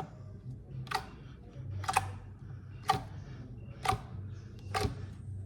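Sharp clicks at a steady pace of about one a second, over a low steady hum.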